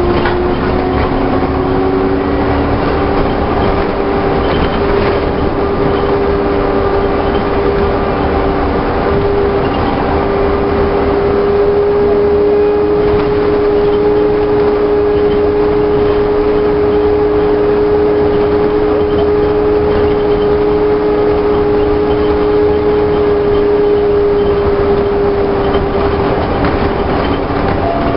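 Volvo double-decker bus with Alexander bodywork running at a steady speed: a steady engine and driveline whine that rises slightly in the first few seconds and then holds, over a low even rumble.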